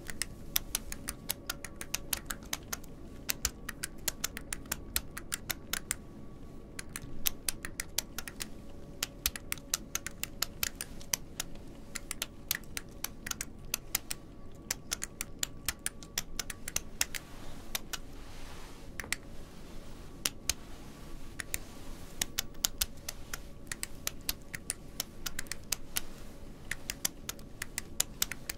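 Quick, sharp clicks and taps of small metal objects handled close to the microphone, in uneven rapid runs with short pauses.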